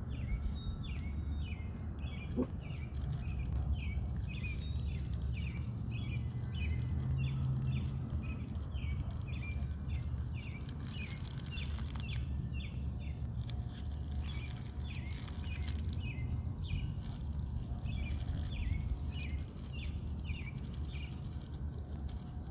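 A small bird chirping over and over, short calls at about two a second, over a steady low rumble.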